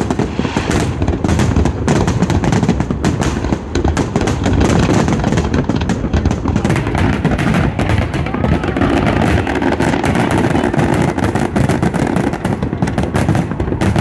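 Fireworks display going off in a rapid, unbroken run of bangs and crackles, with deep booms beneath.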